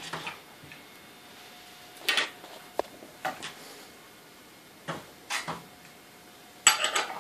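Irregular knocks and clinks of wood and metal hardware as a wooden Hitchhiker spinning wheel is handled and taken apart. There is a brief metallic ping about three seconds in and a cluster of louder clacks near the end.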